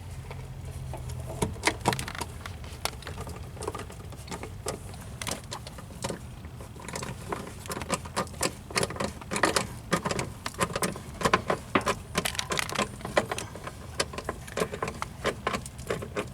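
Quick, irregular metallic clicking and clinking of a socket wrench on an extension driving Torx screws into a turn signal housing, the clicks coming thicker in the second half.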